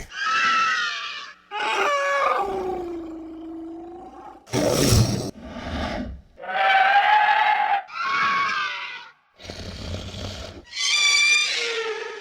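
Lizard-monster creature sound effect: a run of about eight separate roaring calls, each a second or so long, with short gaps between them; some slide downward in pitch.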